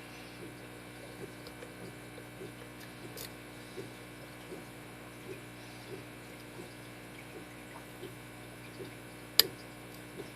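Faint, fairly regular clicks as a pick works the pins of a Schlage SC1 five-pin deadbolt cylinder during single-pin picking, with one sharp, loud click near the end. The pick is being worked under light tension from a tension wrench, and the loud click is typical of a pin setting at the shear line. A low steady hum lies underneath.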